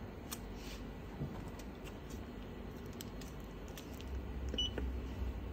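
Kern scale's digital weight indicator giving one short high beep near the end as a key on its keypad is pressed during calibration. Before it come a few faint clicks and handling noise.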